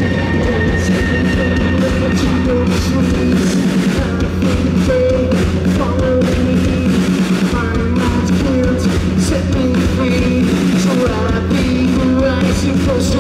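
Rock band playing live: electric guitars, bass and drums, with a man singing into a microphone. Low bass notes are held for a few seconds at a time under the vocal line.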